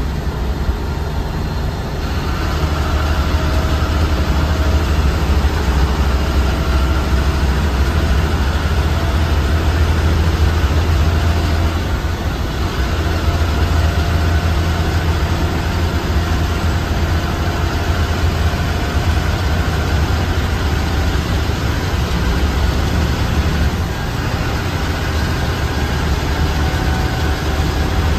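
Diesel engine and road noise of an AC sleeper coach, heard from inside the bus while it cruises along the highway: a steady deep rumble with a faint whine above it.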